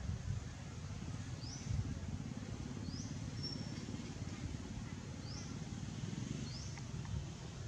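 A bird gives a short, high, rising chirp five times, one to two and a half seconds apart, over a louder low rumbling noise.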